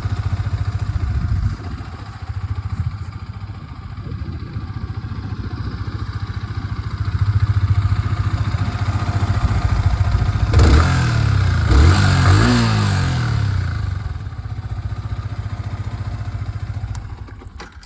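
Yamaha R15 V3's 155 cc single-cylinder engine idling steadily. It is blipped twice about two-thirds of the way through, the pitch rising and falling back to idle. It runs without the irritating knocking noise, which came from a failed starter one-way clutch that has been replaced.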